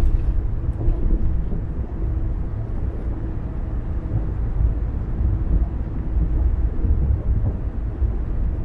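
A car driving steadily on the road: a continuous low rumble of tyre and road noise with a faint engine drone underneath.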